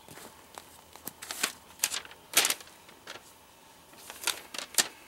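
Irregular sharp crinkles and crackles of stiff plastic being handled, from a new, fold-creased inflatable air mattress pressed flat by hand and its plastic-wrapped papers. The loudest crackles come about halfway through and near the end.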